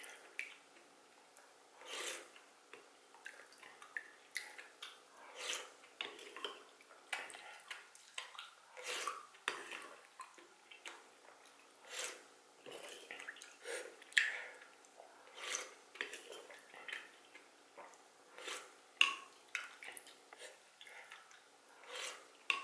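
Soup being sipped and slurped from a wooden spoon, with the spoon knocking and scraping in an earthenware pot, and wet mouth sounds. Short separate bursts, one every second or two.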